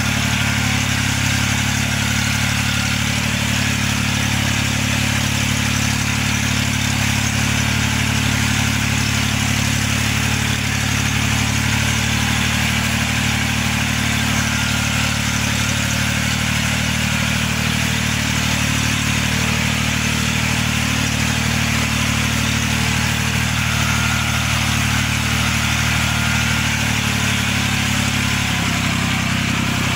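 Small tractor engine running steadily as the tractor pulls an implement through soil, with a shift in engine pitch near the end.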